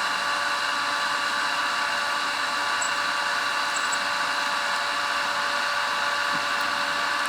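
A 600-watt electric water pump running steadily, with an even, high whine over a motor hum as it pumps water uphill to a tank.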